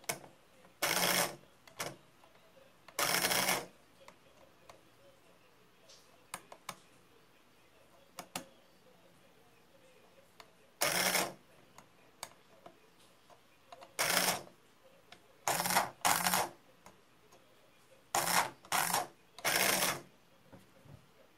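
Small DC gearmotors of a two-wheeled robot chassis whirring in about ten short bursts, each half a second to a second long, as a screwdriver tip bridges the BD139 transistor on the motor-driver board to force the motor to run. It is a test of a driver whose left motor will not reverse, the fault put down to a dead FET. Faint ticks of the screwdriver on the board fall between the bursts.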